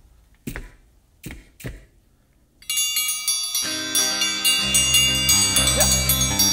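Three sharp knocks in the first two seconds, then intro music starts about two and a half seconds in: bright chiming notes first, with a bass line and fuller backing joining about a second later.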